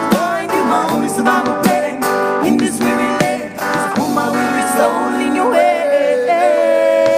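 Live worship band music led by a strummed acoustic guitar, with a long held note near the end.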